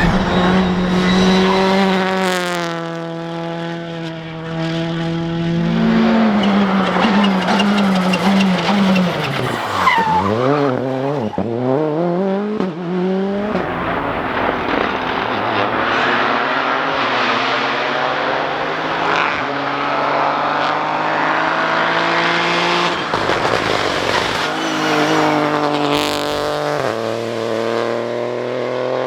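Rally car engines at high revs on a special stage, several cars in turn. The pitch is held high, then jumps quickly up and down around ten seconds in as the throttle is worked through a corner, and climbs again near the end. Tyres skid and scrabble on the slippery surface.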